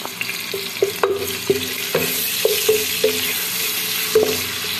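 Sliced onions sizzling in hot oil in a pot while a wooden spatula stirs them, knocking against the pot about twice a second, each knock with a short ring.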